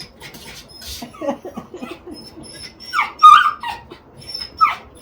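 Schnauzer whining in a series of short, high, falling cries, loudest about three seconds in and again near the end.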